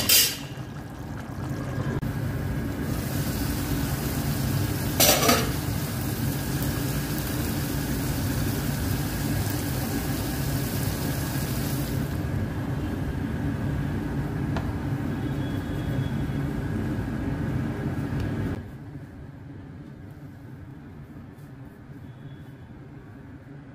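A pot of chicken tahri boiling hard on the stove: a steady bubbling hiss over a low hum, with a sharp knock about five seconds in. The sound drops much quieter a little after eighteen seconds.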